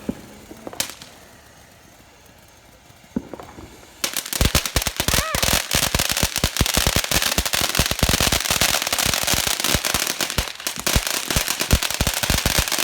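A string of firecrackers going off: a couple of single pops in the first few seconds, then a rapid, unbroken run of sharp bangs starting about four seconds in and carrying on.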